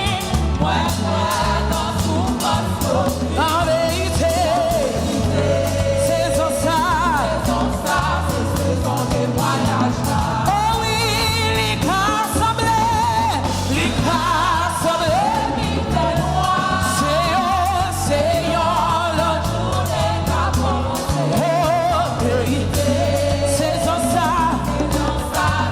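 Live gospel worship song: singing voices over a band with bass and drums, keeping a steady beat.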